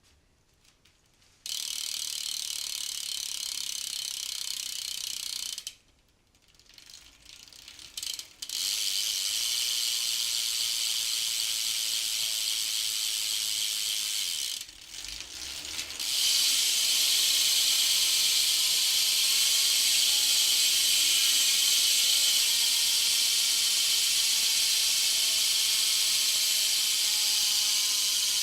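Freewheel ratchet of a BMX bike's Cinema VX2 rear hub clicking rapidly as the rear wheel spins freely. It runs in three spells with short breaks, and is loudest in the last spell, from about 16 seconds in.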